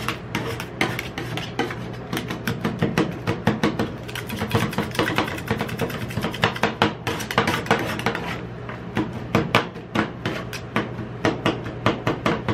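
Metal spatulas chopping and scraping ice cream and KitKat chunks on a frozen steel rolled-ice-cream plate: rapid, irregular clacks several times a second over a steady low hum.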